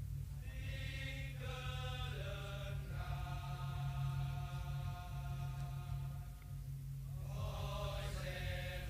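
Slow music of long held melodic notes that change pitch every second or few, with a short lull about two-thirds of the way through, over a steady low hum.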